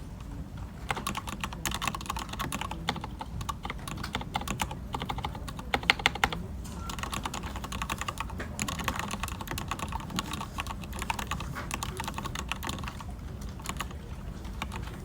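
Typing on a computer keyboard: quick runs of keystrokes with short pauses, and a few harder strikes about six seconds in. A steady low room hum runs beneath.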